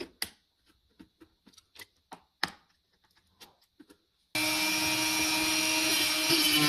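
A few light clicks and taps of tools being handled. Then, about four seconds in, a power tool starts suddenly and runs steadily with a high whine.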